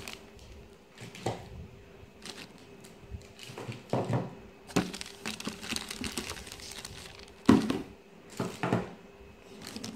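Plastic zip bags and bubble wrap crinkling and rustling in irregular bursts as bagged servos are handled in a cardboard box, with the sharpest crackle about seven and a half seconds in.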